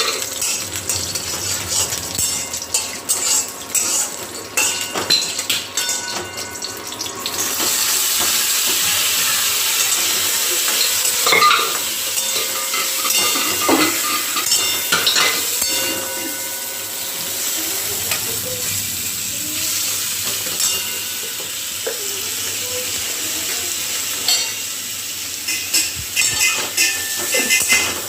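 Panch phoron and dried red chillies frying in hot oil in a pan, stirred, with scraping and clicking against the pan. About seven seconds in the sizzle suddenly gets much louder, then eases off after about sixteen seconds.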